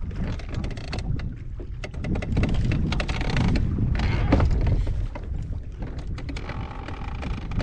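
Gusty wind buffeting the microphone in a low rumble, with choppy waves slapping and splashing against a bass boat's hull.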